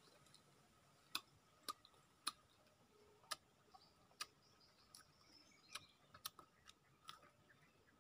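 Brittle shell of a dry tamarind pod being cracked and peeled by hand: an irregular series of sharp little snaps, about ten in all, with near silence between them.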